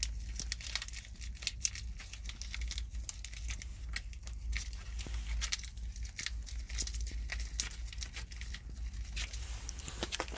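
Irregular crinkling and crackling clicks, many short snaps close together, over a steady low rumble.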